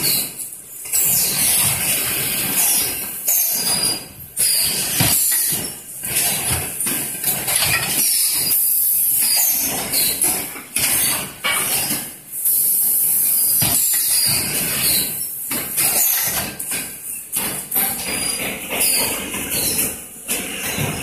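PVC bag zipper-welding press running with PVC film being handled: a loud, noisy machine din broken by short dips every second or two.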